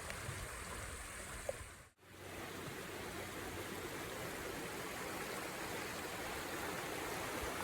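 Steady rushing noise of running water, like a small stream, which drops out briefly about two seconds in.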